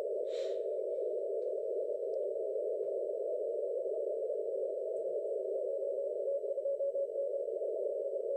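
Shortwave receiver hiss through a narrow CW filter, with a faint Morse code tone keying in it, plainest in the second half. It is the 3Y0J DXpedition on Bouvet Island, heard on the 30-metre band.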